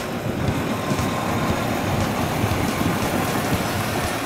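Engines of a large container forklift and container trucks running, a steady low rumble.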